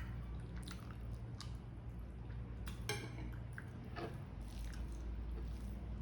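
A person eating chicken liver and gizzard adobo close to the microphone: chewing, with short wet mouth clicks and smacks at irregular intervals over a steady low hum.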